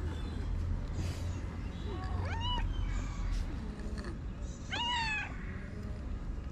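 A cat meowing twice, each meow rising then falling in pitch, over a low steady background rumble.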